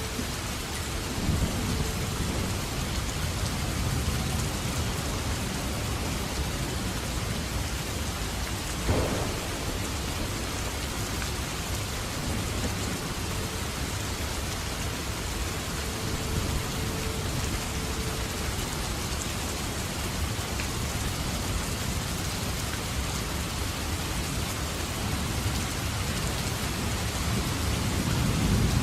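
Steady, heavy rain falling in a thunderstorm, with low rolls of thunder swelling in and out. There is a sharp crack about nine seconds in, and a louder rumble near the end.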